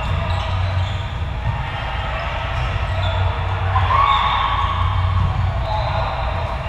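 Indoor volleyball rally in a large echoing gym: the ball being struck and players calling out, over a steady low hum.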